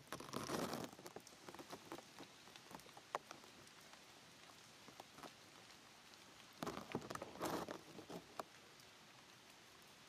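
Faint rustling in two short bursts, one right at the start and one about two-thirds through, with scattered light ticks between.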